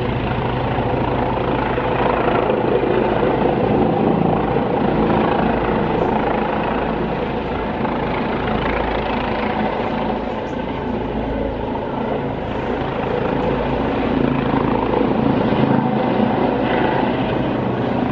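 Helicopter running close by, its rotor and turbine making a loud, steady noise.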